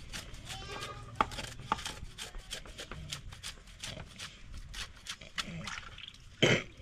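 A knife scraping and scaling fish in a plastic basin: a run of short, irregular scraping clicks, with a louder knock near the end.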